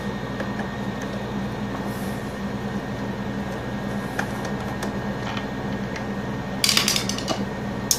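Screwdriver working the Phillips screw at the back of an electric stand fan's plastic motor housing: faint scrapes and ticks over a steady low hum, then a short burst of sharp clicks and rattles near the end.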